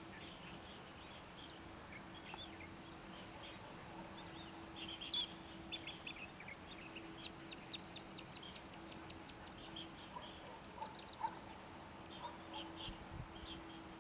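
Birds calling at a wetland: scattered short, sharp calls and chirps, the loudest about five seconds in, with a quick run of ticking calls a couple of seconds later.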